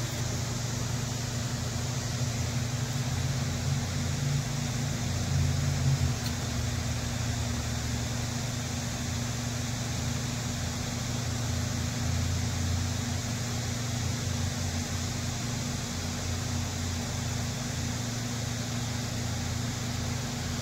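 A machine's steady low hum with an even hiss over it, unchanging apart from a slight swell about five seconds in.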